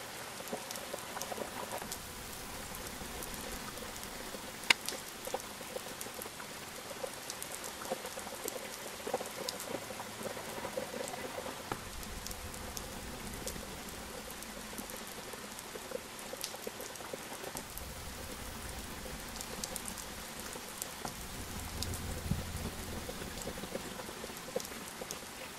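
Steady patter of rain with many scattered light ticks of drops, and a brief low rumble near the end.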